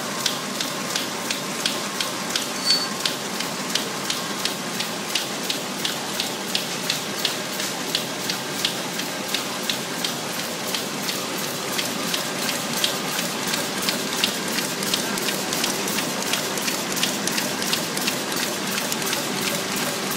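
High-speed box packing (cartoning) machine running, its mechanism clicking in an even rhythm of about three clicks a second over a steady mechanical hiss.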